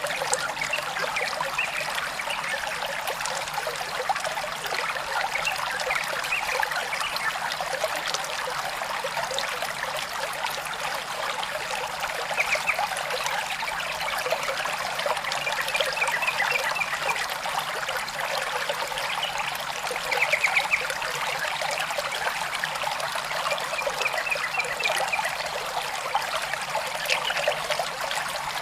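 Small stream of water trickling steadily, with short bursts of rapid high chirping every few seconds.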